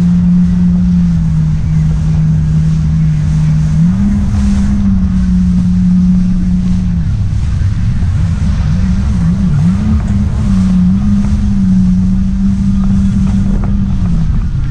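Yamaha jet ski engine running under way, its pitch stepping up about four seconds in, wavering between about eight and ten seconds as the throttle is worked, and dropping near the end, over the rush of wind and water.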